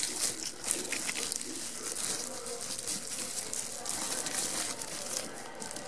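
Bubble wrap being unwrapped by hand, crinkling and rustling with many small irregular crackles.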